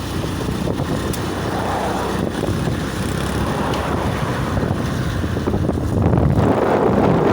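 Roadside traffic noise with wind on the microphone while riding along a road; the noise gets louder about six seconds in.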